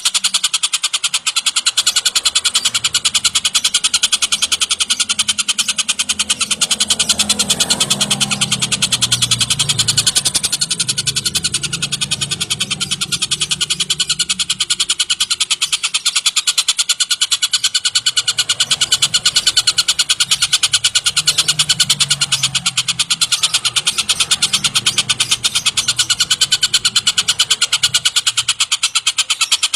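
A tengkek buto kingfisher calling in a fast, unbroken chatter of short repeated notes, the gacor (non-stop) calling used to tutor other cage birds.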